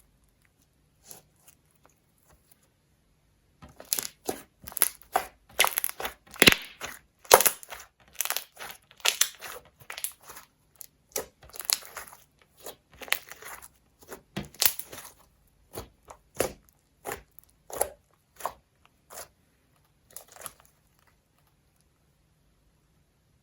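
Slime with makeup mixed into it being pressed and worked, giving an irregular run of sharp crackles and pops that starts a few seconds in and stops a few seconds before the end.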